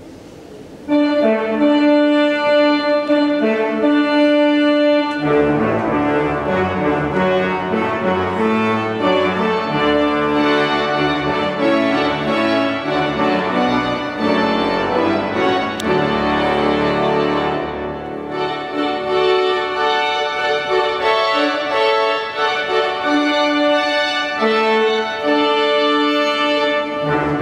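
The great pipe organ of Notre-Dame de Paris playing loud sustained chords. It enters suddenly about a second in, and deep bass notes join at about five seconds.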